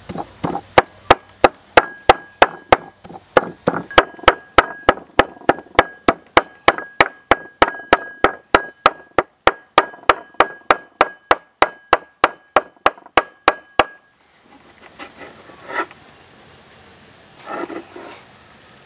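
Large kitchen knife chopping cooked pork offal on a wooden chopping board, about three or four even strikes a second, each with a faint ring from the blade. The chopping stops about 14 seconds in, and the blade then scrapes across the board twice as it gathers up the minced meat.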